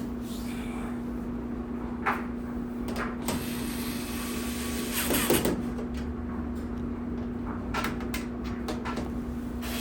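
Scattered clicks, knocks and a short scrape of sheet-metal dryer panels and screws being handled and fastened, over a steady hum.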